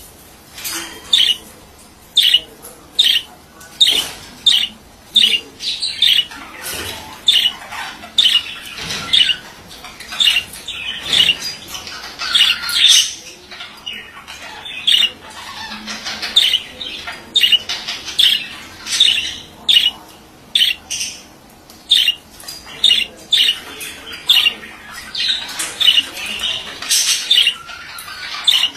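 Male budgerigar calling: short, sharp, high-pitched calls repeating about once or twice a second, with softer warbling chatter between them.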